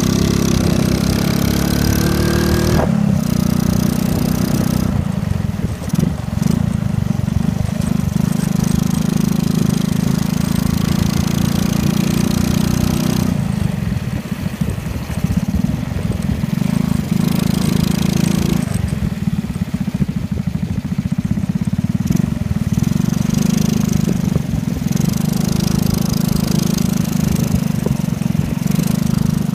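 Small motorcycle engine running under way, heard from the rider's seat. Its pitch rises over the first three seconds as it speeds up, then holds fairly steady.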